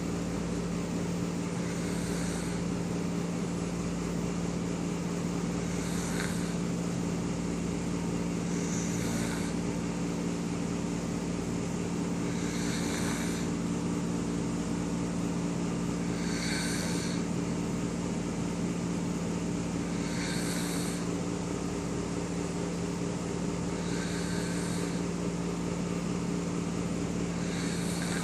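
A man snoring, one snore roughly every four seconds, each about a second long, over a steady low drone.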